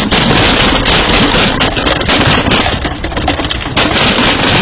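Explosive eruption of steam and debris: a loud, continuous rushing roar packed with rapid crackling and popping.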